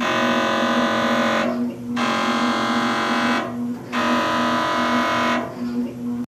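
Electronic buzzer or alarm sound effect: a harsh, steady buzzing tone sounding three times, each buzz about two seconds long.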